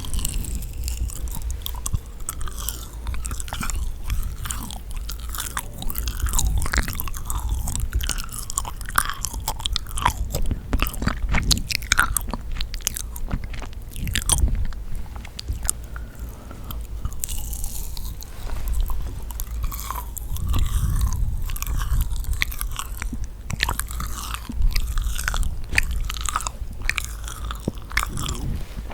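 Close-miked biting and chewing of yakgwa, the sticky, honey-soaked Korean fried cookie. It makes a continuous run of small, moist clicks and crunches.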